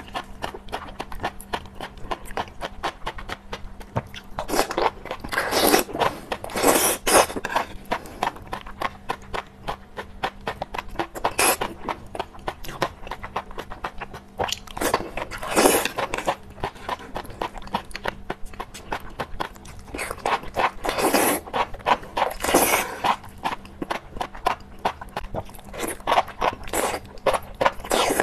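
Close-miked eating of enoki mushrooms in chili oil: wet chewing and crunching with constant sticky mouth clicks, and louder slurps of the mushroom strands every few seconds.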